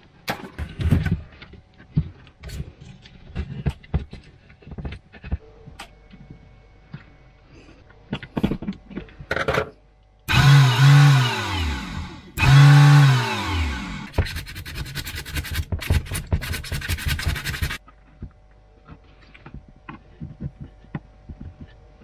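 Small clicks and knocks of wires and tape being handled. Then, about ten seconds in, a 12-volt boat-winch DC motor twice spins up with a whine that rises and falls. A few seconds of fast, even rattling follow.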